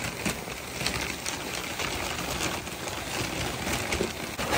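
An animal urinating: a steady splattering stream of liquid hitting the ground, full of small crackles.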